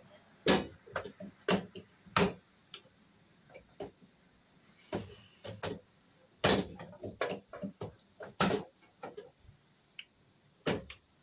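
Sharp plastic clicks and knocks of a 100 amp double-pole circuit breaker being worked by hand onto the bus of an electrical panel, irregular, with the loudest knocks about half a second in, about six and a half seconds in and about eight and a half seconds in.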